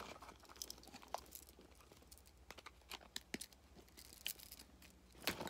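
Faint rustling and crinkling of plastic packaging and small objects being handled, with scattered light clicks and a sharper knock near the end.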